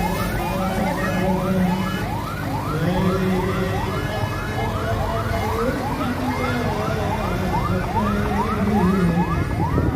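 A siren in a fast yelp: rising sweeps repeating about three times a second, over a steady lower drone.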